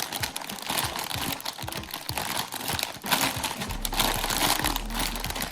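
Thin plastic LEGO parts bag crinkling as it is handled and torn open, a dense crackle of plastic film throughout.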